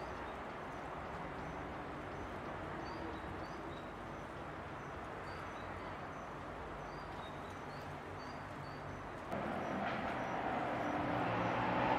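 Quiet garden ambience: a low steady hum under faint, repeated short bird chirps. A little over nine seconds in it gets louder with rustling as vegetables and leaves are handled in a wicker basket.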